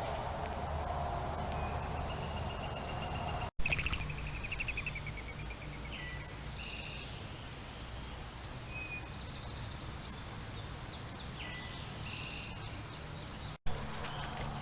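Several birds chirping and singing in short, varied phrases, over a steady background hiss. The sound cuts out completely for a split second twice, about three and a half seconds in and again near the end.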